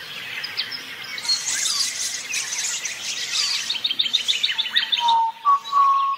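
A chorus of birds chirping and calling, with a fast trill of about nine notes a second in the latter half, and a steady whistled tone in the last second.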